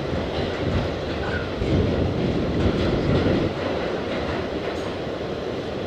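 New York City subway G train running through a tunnel: a steady rumble of wheels on rail, with a few faint clicks.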